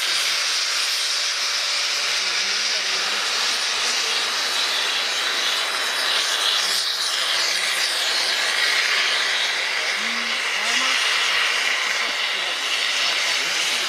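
Steam locomotive 354.1217 venting steam in a steady, loud hiss.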